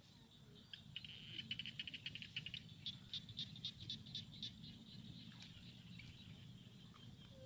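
Frogs calling in a flooded rice paddy, faint: about a second in a fast train of high clicking pulses, then a run of louder, slower clicks at about five a second.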